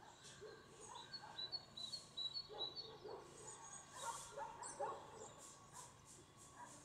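Faint, distant dogs barking in short repeated yelps, with a bird's quick run of high chirps about a second in.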